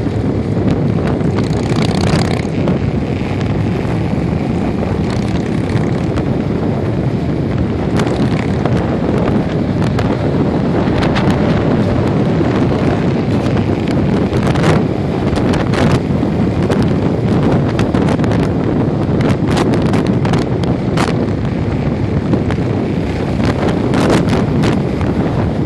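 Heavy wind noise buffeting the microphone of a motorcycle moving at highway speed, a steady low rumble mixed with engine and road noise, with brief crackles of wind hitting the mic throughout.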